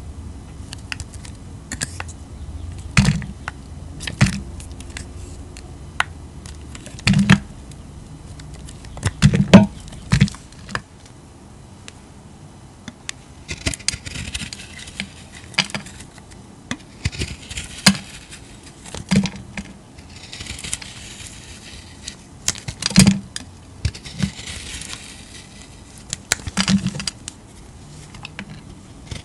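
Bars of soap being cut with knife blades: scattered sharp cracks as pieces break away, and in the second half several stretches of scraping as the blade shaves along the soap.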